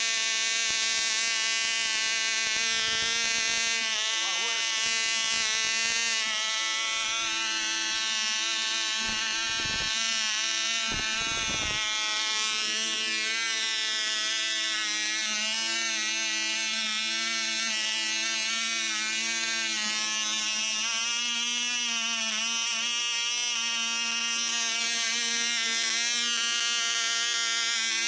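Small Cox glow-plug two-stroke model engine running steadily at high speed, turning its propeller: a loud, high, buzzing whine that wavers slightly in pitch.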